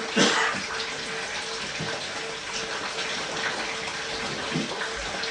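Steady rushing noise like running water, with a steady hum underneath. There is a brief louder swish just after the start and a couple of faint low thuds later on.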